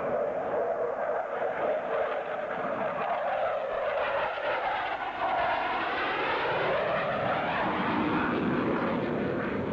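Jet noise from a Grumman F-14 Tomcat's twin engines as it passes overhead, a loud steady rush whose tone sweeps up and back down around the middle as the jet goes by.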